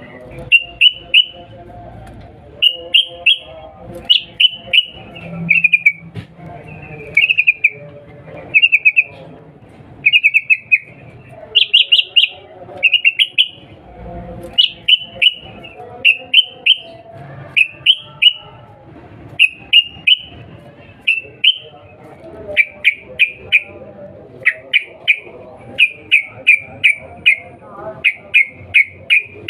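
Yellow-vented bulbul calling: bright, quick 'cuk-cuk' chatters in clusters of two to five notes, repeated about once a second, over faint knocks and rustling.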